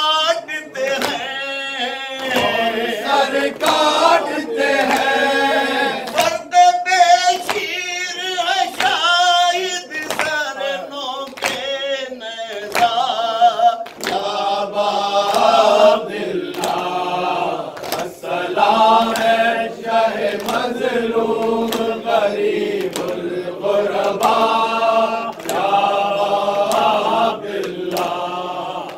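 Group of men chanting an Urdu noha (mourning lament) in unison behind a lead reciter, with palms striking their chests (matam) in a steady beat.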